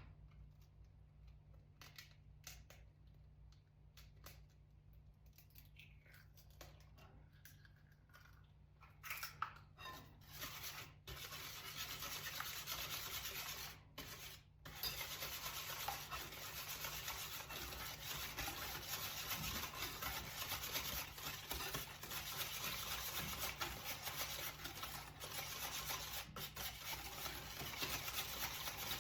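Wire whisk beating melted butter, sugar and eggs in a bowl by hand to work air into the batter. A few light taps and scrapes come first, then from about ten seconds in a fast, steady scraping whisking that continues with only brief pauses.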